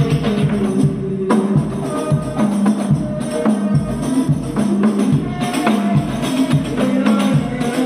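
Hadrah ensemble of rebana frame drums beating a steady, repeating rhythm, with a lead voice singing sholawat over it, amplified through a home speaker system.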